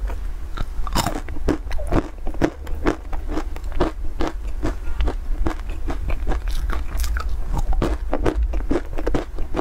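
Crunching and chewing of candied sesame walnuts: a bite at the start, then steady crunching, about two crunches a second, over a steady low hum.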